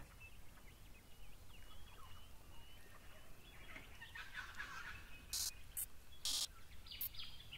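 Faint bird chorus: many small chirping calls, with a few short, louder calls about five and a half and six and a half seconds in, over a low steady background hum.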